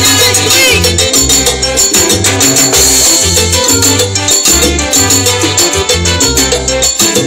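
Live salsa band playing: a repeating bass line under timbales, percussion and a shaker, with trombone in the band.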